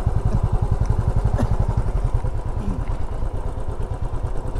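Motorcycle engine running steadily while riding, a fast, even throb.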